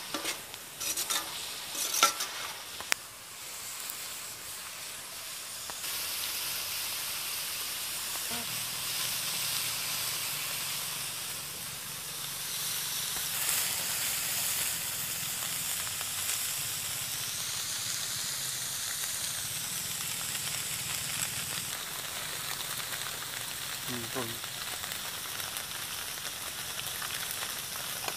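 Chunks of goat blood sizzling and frying in a large iron wok. A metal ladle stirs them, scraping and knocking against the pan sharply in the first few seconds, then the sizzle runs on steadily.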